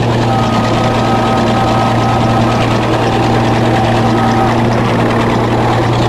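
Crawler bulldozer's diesel engine running steadily, heard close up from on the machine, with a thin whine over the engine drone that stops about two-thirds of the way through.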